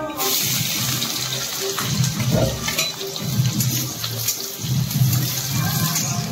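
Water running steadily, as from a tap, with background music underneath.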